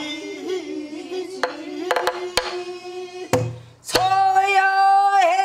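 A woman sings a line of a Korean dan-ga in pansori style, accompanied by strokes on a buk barrel drum. Her voice holds long notes, leaps to a high held note about four seconds in, and bends down at the very end, with several sharp drum strokes in between.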